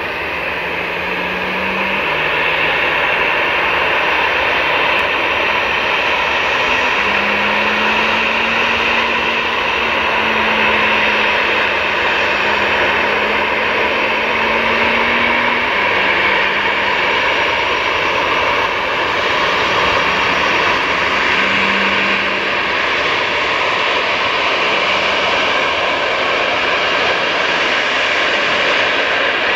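Airbus A320-214's CFM56-5B turbofan engines running steadily at low power as the airliner taxis and lines up: an even jet whine and hiss with a low hum that wavers slightly in pitch.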